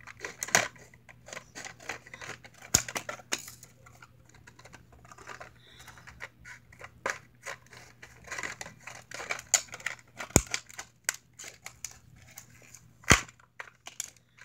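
Hot Wheels blister pack of plastic and cardboard being worked open by hand: continual crinkling and tearing with many small clicks, and a few louder sharp snaps spread through.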